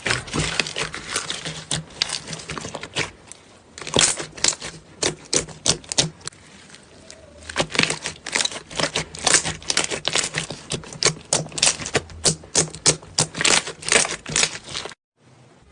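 Slime being pressed and squeezed by hand, making a fast, irregular series of sharp clicks and pops.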